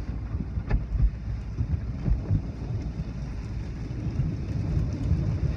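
Automatic car wash heard from inside the car's cabin: cloth wash strips slap and drag over the windshield and roof while water and soap spray onto the glass. It comes through as a low, steady rumble with irregular thumps.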